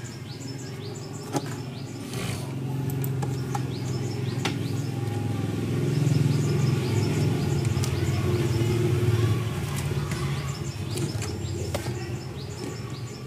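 A low vehicle engine rumble from outside swells to its loudest about halfway and then eases off. Small birds chirp steadily over it, and there are a few sharp clicks.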